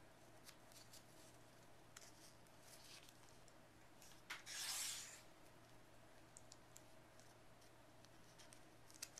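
Faint handling sounds of fabric and magnetic snap parts being fitted: scattered small clicks and a brief scratchy rustle about four and a half seconds in, over a low steady hum.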